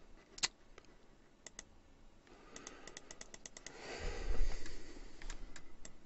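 Computer mouse and keyboard clicks: single sharp clicks, then a quick run of about ten even clicks, as someone tries to get a frozen Skype to respond. A sigh close to the microphone about four seconds in is the loudest sound, and a few more clicks follow near the end.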